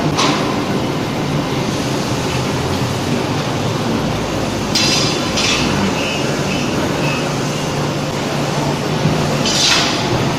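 Forge-shop machinery noise while a pre-forging press works a red-hot shackle blank: a loud, steady din with a low hum, and short hissing bursts about five seconds in and again near the end.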